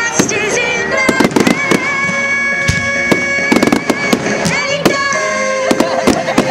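Aerial firework shells bursting and crackling in quick, irregular succession, over music with long held notes.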